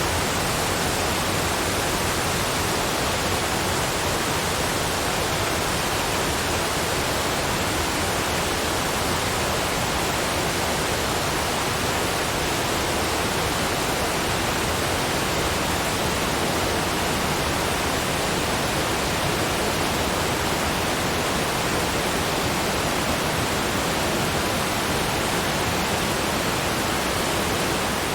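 Waterfall, a steady, unbroken rush of falling water with no distinct splashes.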